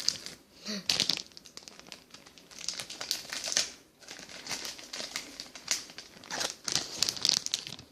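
Squishy toy packaging being handled and opened: irregular crinkling and rustling in clusters, with some tearing.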